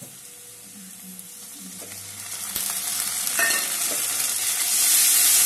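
Onions frying in hot mustard oil in a wok, with a spatula stirring and knocking against the pan. The sizzle swells about halfway through as onion paste goes into the oil, and is loudest near the end.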